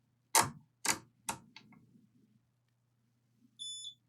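Three sharp clicks about half a second apart, then, near the end, one short high electronic beep from a multimeter's continuity tester while pins are checked for a short.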